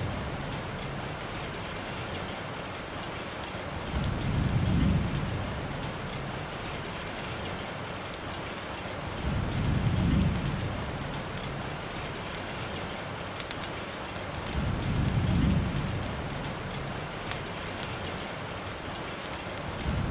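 Steady rain falling, with a low rumbling swell that rises and fades about every five to six seconds.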